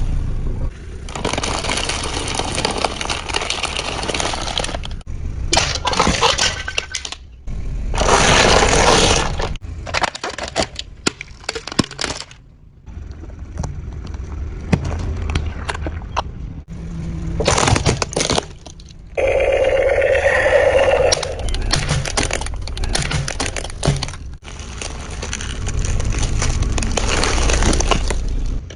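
A run of objects cracking and breaking as they are crushed under a car's tyres, in short back-to-back segments that start and stop abruptly. About two-thirds of the way through there is a squeal-like tone of about two seconds.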